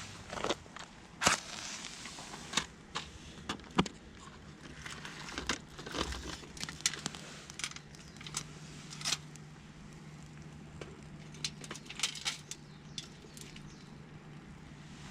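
Small wood campfire crackling, with irregular sharp pops and snaps.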